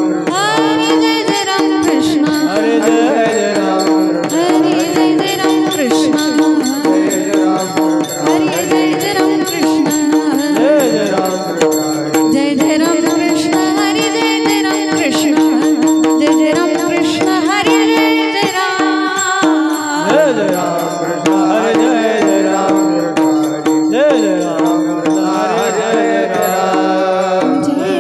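Marathi devotional singing: a voice sings long, gliding melismatic lines without clear words over a steady held drone note, with drum and percussion accompaniment keeping a beat.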